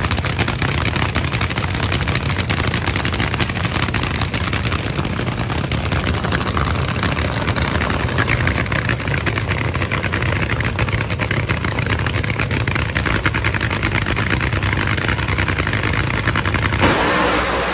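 Drag-racing dragster's V8 engine running steadily at a loud, fast-crackling idle. The sound breaks off abruptly near the end.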